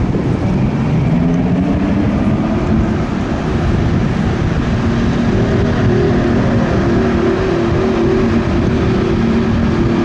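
Fire boat's inboard engines running up under throttle as it accelerates, their pitch rising over the first few seconds and then holding steady, over the rush of the hull's wake.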